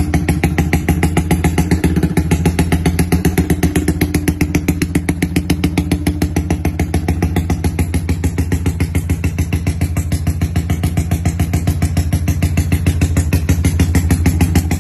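Yamaha MX King 150 (Y15ZR) single-cylinder four-stroke engine idling with a rumble-idle ignition-timing tune ('timing kuda'): a loud, steady, rapid train of even exhaust pulses through a stock exhaust.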